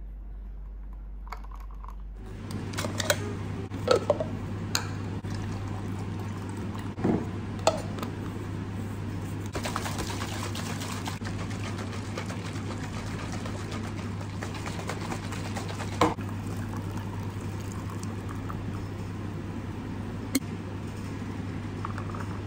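Matcha drink being poured into a pitcher, with scattered sharp clicks and knocks of cups and objects handled on a desk over a steady low hum.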